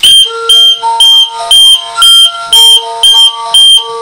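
Wireless SB2 panic alarm's 3-tone siren sounding, latched on by an activated panic button. Loud, high-pitched beeps come about two a second, with lower tones beneath that shift in pitch.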